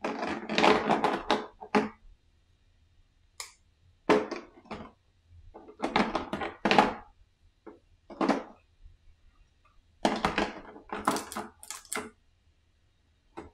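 Handling noise from unpacking plastic game miniatures: bursts of clicks, clatters and rustles of the figures and their packaging, the longest run at the start, with short pauses between the rest.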